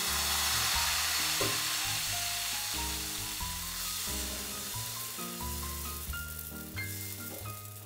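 Thin flour batter sizzling as it is poured into a hot nonstick pan and spread with a ladle; the sizzle starts suddenly, is loudest in the first few seconds and then dies down. Soft background music with single plucked or keyboard notes plays throughout.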